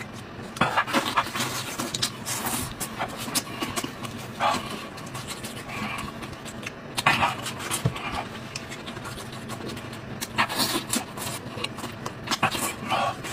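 Close-miked eating of braised sheep head meat: wet chewing and mouth smacks, mixed with meat being torn apart by gloved hands. Irregular short crackles and smacks come every second or so.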